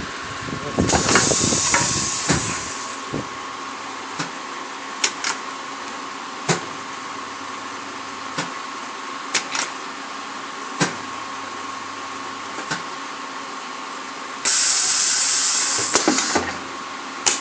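Turntable high-frequency PVC blister welding machine running with a steady hum and a held high tone. A loud hiss lasts about two seconds near the start and another comes near the end. Scattered sharp clicks and knocks sound in between.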